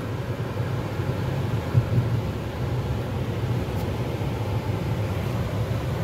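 Car engine and tyre noise heard from inside the cabin while driving: a steady low rumble, with a short thud about two seconds in.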